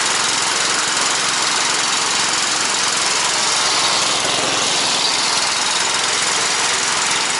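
Small petrol engine of a Bars Sledopyt tracked motor-towing unit running steadily under load as it pulls a sled loaded with firewood through loose snow, without the track slipping.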